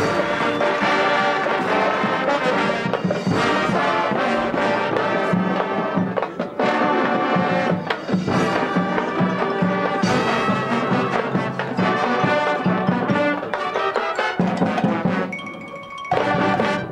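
High school marching band playing a competition show: full brass over percussion, dense and loud. A quieter, thinner passage comes near the end, then a short loud chord that cuts off suddenly.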